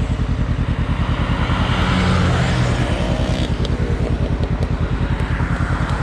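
Honda CBR500's parallel-twin engine idling steadily in an even, fast pulse, with a brief louder swell about two seconds in.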